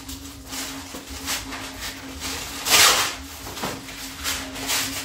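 Washing up at a kitchen sink: water splashing and irregular clatter, with a louder rush of water about three seconds in, over a steady low hum.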